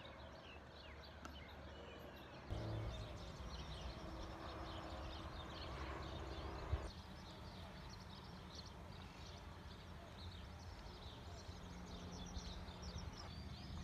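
Faint outdoor background noise with small birds chirping and twittering, a low steady hum underneath that gets a little louder about two and a half seconds in.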